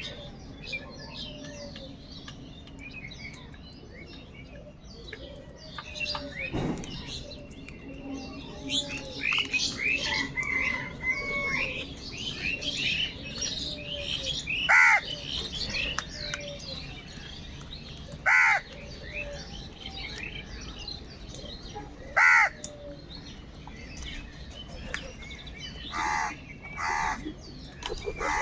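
Crows cawing, single loud harsh caws about every four seconds from the middle on and a quick pair near the end, over a continuous chatter of small-bird chirps.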